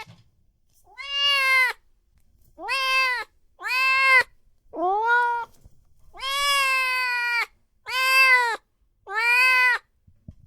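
Newborn kitten meowing over and over: about seven high, arching cries with short gaps between them, one drawn out longer than the rest. Cries like these are the distress call that kittens under a month old use to summon their mother.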